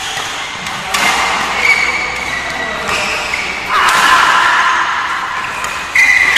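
Badminton racquets striking a shuttlecock during a fast doubles rally: a few sharp hits a couple of seconds apart, echoing in a large hall.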